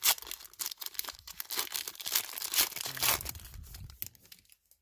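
Foil wrapper of a Panini Prizm football card pack being torn open and crinkled by hand: a dense run of sharp crackles, loudest at the first rip, stopping shortly before the end.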